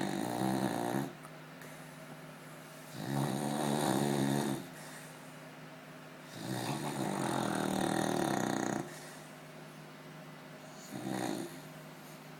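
Beagle snoring in its sleep: four snores spaced about three seconds apart, the last one short.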